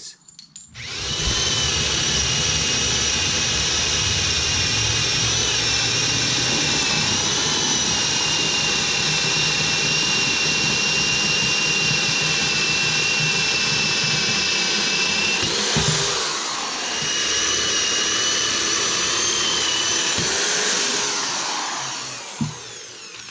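Corded electric drill running steadily under load as a 5/8-inch bit bores through a wooden table leg and its frame. The motor's whine dips and changes pitch briefly about two-thirds of the way through, then runs on and winds down near the end.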